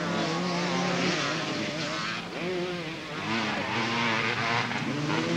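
Several motocross dirt bike engines revving round the track, their pitch rising and falling as the riders work the throttle and gears.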